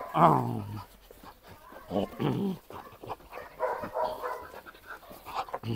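Dog giving several short vocal sounds, the first sliding down in pitch, while jumping at and tugging on a trainer's bite pillow.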